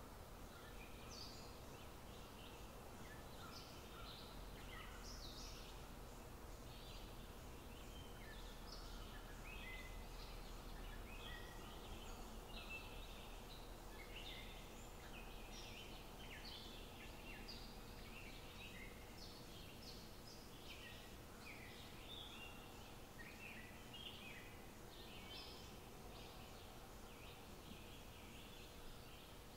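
Faint chirping of small birds, many short calls overlapping, over a low steady background hiss.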